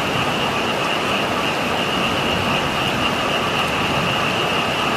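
A dense chorus of frogs calling without pause, a steady high-pitched drone over the hiss of heavy typhoon rain.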